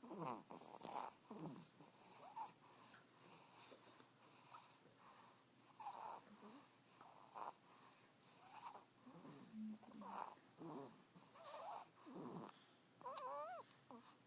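Faint snoring: short wheezy, whistling breaths about once a second, with a wavering high squeak on a breath near the end.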